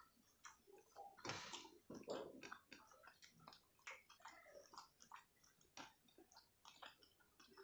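Faint close-miked eating sounds: many small wet clicks from chewing and from fingers tearing a boiled cabbage leaf and mixing rice on a plate, with two louder rustles about a second and two seconds in.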